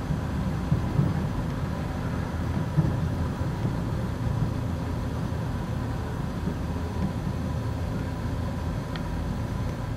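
Steady low rumble of outdoor city ambience, with a faint steady hum above it.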